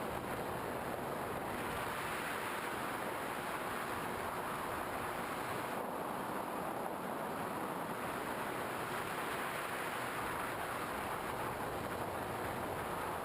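Steady rushing noise of air flowing past the onboard camera of a Skywalker 1900mm FPV model plane in flight, even in level throughout.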